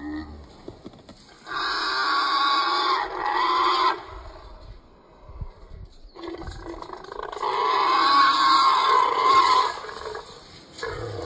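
Trapped feral hog squealing: two long squeals, each roughly two to three seconds, the first starting about a second and a half in and the second about six and a half seconds in.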